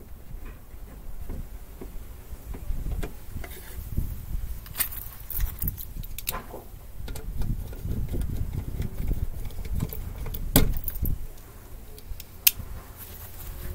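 Small metal electrical hardware handled by hand: light metallic clinking and jangling with scattered sharp clicks, the loudest a little past ten seconds in and again about twelve seconds in.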